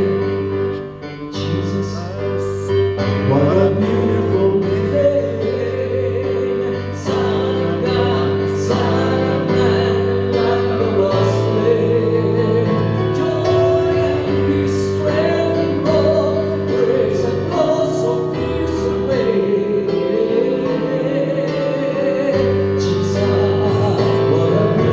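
Church worship music: a slow band piece of long held keyboard chords over a bass line, with some singing over it.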